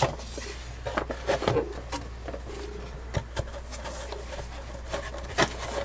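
Cardboard being handled: a box flap and its insert rustle, scrape and knock lightly in a string of short, scattered sounds, over a steady low hum.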